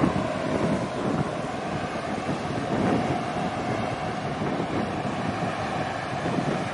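Wind buffeting the microphone by the harbour water, over a steady rush of sea and a faint steady hum.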